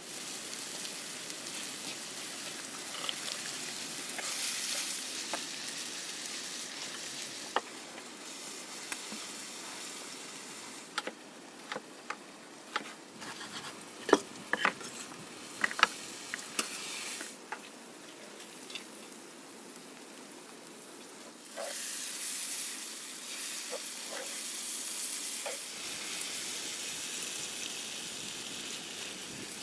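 Food frying and sizzling in a pan, with a run of sharp clicks and knocks midway through and the sizzle turning louder about two-thirds of the way in.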